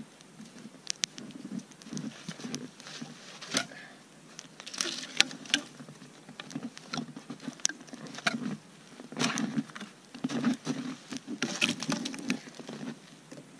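Irregular crunching of deep snow underfoot and wooden knocks and scrapes as sawn dry logs are carried and laid down on one another, with the sharpest knocks about 3.5 and 5 seconds in.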